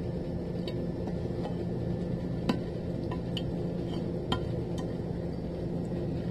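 A handful of light clinks and taps of a saucepan and spatula against a glass baking dish as sauce is poured in and spread, the loudest about two and a half seconds in, over a steady low hum.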